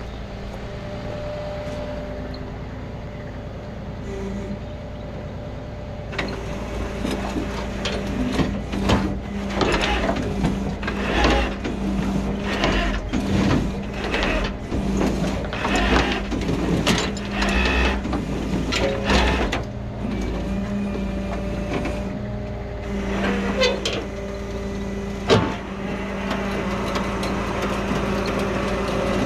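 Tow truck engine running steadily while the bare metal shell of a burned-out car scrapes and clanks against the steel deck of the rollback bed. The clatter starts about six seconds in, is densest for the next dozen seconds, and dies back to the engine's hum before a last few knocks.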